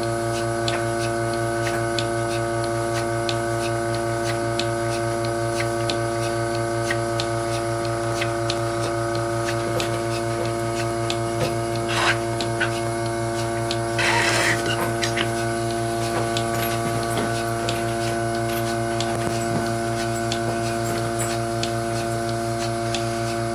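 Milking machine running steadily: the vacuum pump's motor hum under the Surge bucket milker, with faint regular ticks. A short sharp sound about twelve seconds in and a brief hiss of air about two seconds later.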